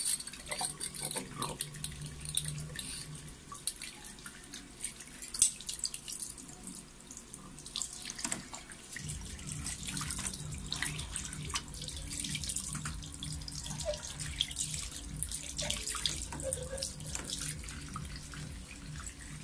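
Water from a tap running into a bathroom sink while a glass test tube is rinsed under the stream, with scattered sharp clicks and knocks, the loudest about five seconds in.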